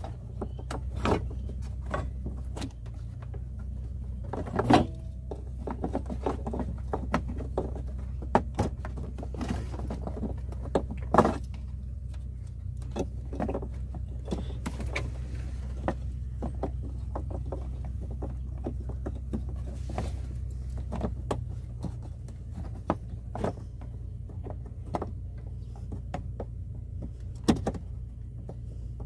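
Scattered clicks and knocks of hard plastic as a new blower-fan controller is pushed and clipped into the truck's plastic air-conditioning blower housing and its wiring connector is handled, over a steady low hum that weakens about two-thirds of the way through.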